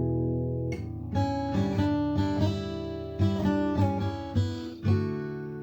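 Acoustic guitar music: a strummed chord ringing, then a run of picked notes at about two a second.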